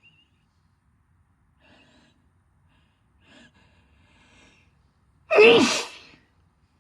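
A person taking a few faint gasping breaths, then sneezing once, loudly, about five seconds in, the sneeze falling in pitch.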